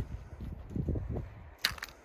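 Footsteps on a hiking trail: irregular low thuds and scuffs, with one sharp click about one and a half seconds in.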